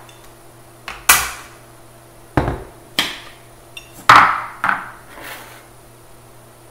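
Handling knocks and clinks of a glass blender jar being lifted off its metal base and its lid taken off and set down on the counter. About half a dozen separate knocks, the loudest just after four seconds in with a brief ring.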